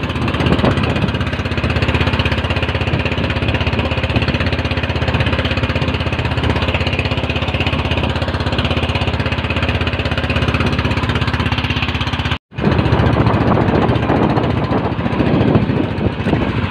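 Outrigger fishing boat's small engine running steadily under way, its rapid firing mixed with wind and sea noise. The sound cuts out for a split second about twelve seconds in.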